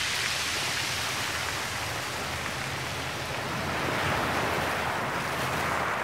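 Small sea waves washing onto a stony beach, the surf noise swelling, easing a little, then swelling again toward the end.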